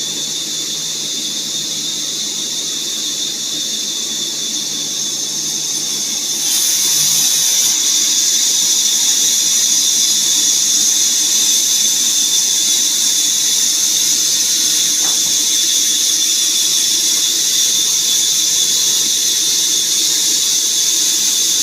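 Woodworking machine running with a steady, high-pitched whine and hiss that grows louder about six and a half seconds in.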